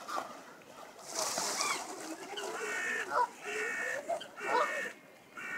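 Canada geese honking in alarm, a run of calls about one a second in the second half, after a person swimming breaststroke splashes through the pond water about a second in. People's voices are in the background.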